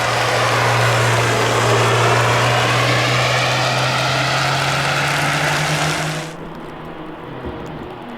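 A car going past, with a steady engine hum and loud tyre hiss that swells and sweeps as it passes. The sound cuts off suddenly about six seconds in, leaving a quieter background.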